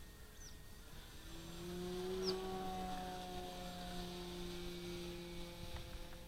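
Model airplane's motor and propeller humming at a steady pitch, coming up about a second in and fading near the end. Two short high chirps sound over it.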